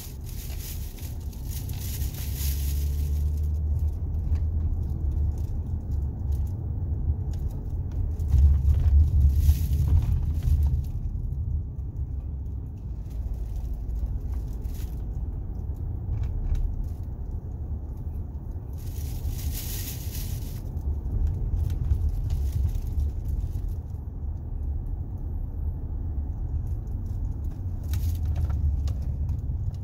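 Road noise inside a moving car's cabin: a steady low rumble of engine and tyres, with a few brief swells of hiss.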